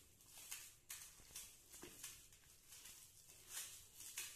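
Faint, irregular squishing and rubbing of a hand mixing a thick paste of ground soaked dal, spices and rice flour in a steel plate, about two or three soft strokes a second.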